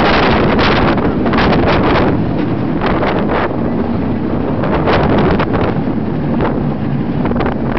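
Rushing wind buffeting the microphone aboard a moving stand-up roller coaster, with the low rumble of the train running on its steel track. The buffeting comes in gusts that rise and fall throughout.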